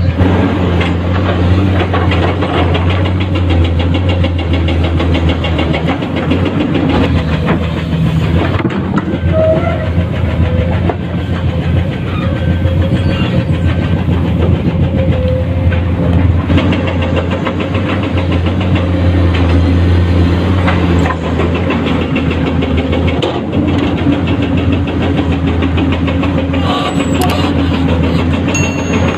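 Komatsu PC210-10 hydraulic excavator's diesel engine running steadily under digging load, with small shifts in pitch and light clatter.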